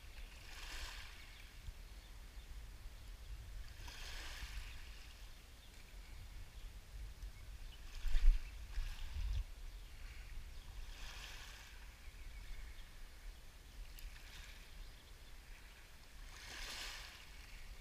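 Small waves lapping and washing over a pebble shore, a soft wash every three to four seconds, over a steady low rumble. A brief loud low bump comes about eight seconds in.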